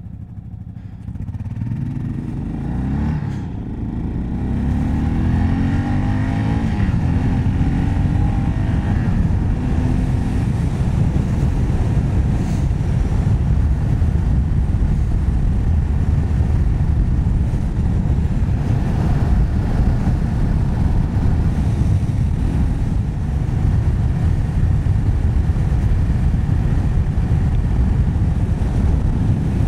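Yamaha XT 600 single-cylinder four-stroke engine pulling away and revving up through the gears. After the first few seconds it settles into a steady run at road speed, with a dense low rush of wind and road noise.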